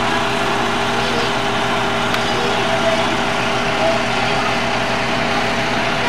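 Utility bucket truck's engine idling steadily.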